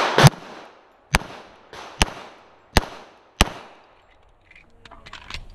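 Pistol shots from a Sig Sauer 1911 MAX in .45 ACP: a quick pair right at the start, then four more single shots less than a second apart, the last about three and a half seconds in, each ringing out briefly.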